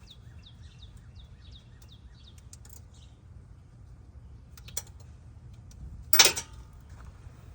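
A wrench strikes metal once about six seconds in, a loud clank with a short metallic ring. Before it, a bird repeats short falling chirps for the first few seconds.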